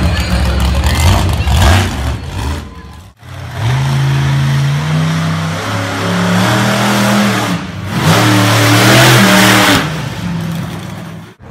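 Monster truck engines revving hard in three short cuts, each ending abruptly. First comes a rough, low engine run, then an engine whose pitch climbs and drops as it is revved, then a louder stretch with a strong hiss over the engine.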